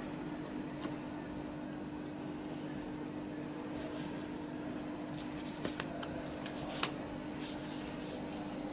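Steady low room hum with a handful of light clicks and scrapes between about four and seven seconds in, from a metal wax instrument and a dental stone cast being handled on the bench.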